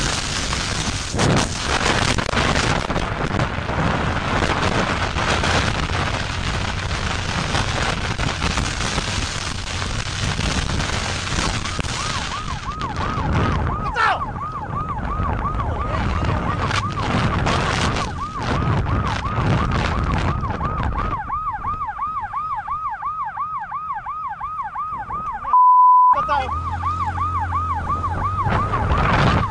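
Rushing wind and road noise from a moving vehicle. From about twelve seconds in, a police siren joins in a fast yelp, its pitch rising and falling about three times a second. Near the end a short, loud, steady beep cuts in.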